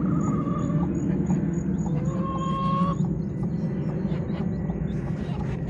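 Chickens calling: two drawn-out, even-pitched calls of about a second each, one at the start and one about two seconds in, over a steady low rumble.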